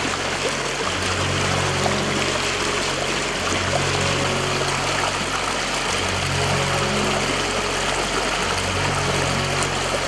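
Stream water rushing over rocks, a steady loud hiss. Low sustained notes of background music, changing about every two seconds, run underneath.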